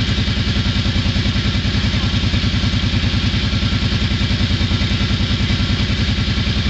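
Engine of a handlebar-steered motor vehicle idling steadily close by, an even rapid chugging that stays level throughout.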